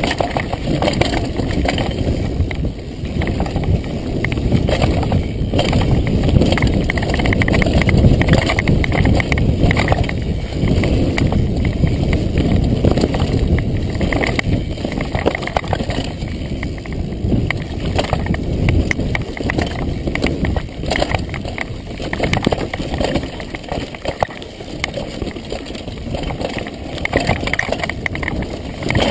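Mountain bike running fast down a dirt forest trail: continuous tyre and trail noise, with frequent knocks and rattles from the bike over the bumps.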